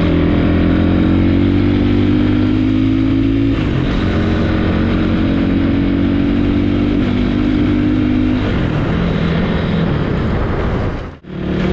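Motorcycle engine running steadily while riding, its pitch shifting twice along the way. The sound drops out briefly near the end.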